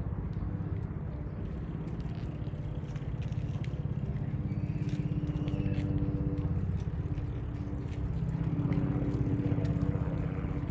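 Boat engine running steadily with a low, rapidly pulsing hum that grows a little louder after about eight seconds.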